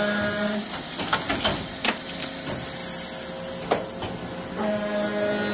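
Tsune TK5C-50GL CNC high-speed carbide cut-off saw cycling automatically on steel bar. A steady machine whine is heard near the start and again near the end, with a few sharp clacks in between, over a steady hiss.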